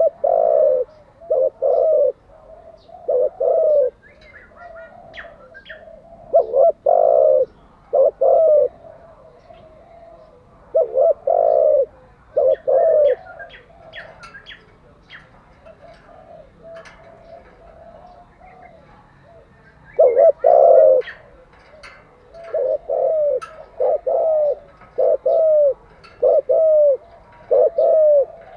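Spotted dove cooing: phrases of two to four low, loud coo notes, repeated with pauses of a few seconds between phrases. Faint high chirps sound in the gaps.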